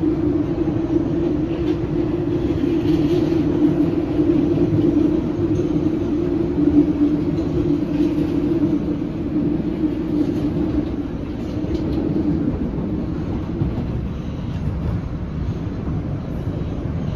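Running noise inside a PATH PA5 railcar moving along the track: a continuous rumble with a steady humming tone that eases off about twelve seconds in.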